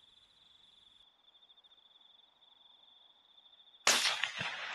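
A single suppressed shot from a 6mm BR rifle about four seconds in: a sudden crack, a dull thud about half a second later, then a long ringing echo. The shot is taken at a fox, which is hit. Before it, insects trill steadily.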